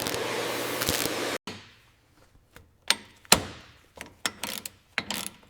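A steady rushing noise that cuts off abruptly about a second and a half in, followed by a string of sharp knocks and clinks from tools working on vehicle parts during teardown, each hit dying away quickly, the loudest a little past the middle.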